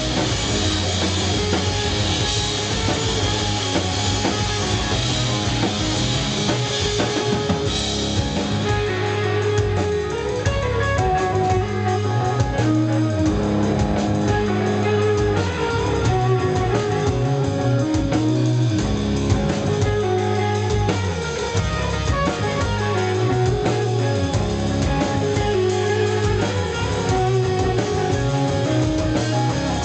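Rock band playing live with no singing: electric guitar, bass guitar and drum kit, loud and steady, with cymbals brightest in the first eight seconds or so.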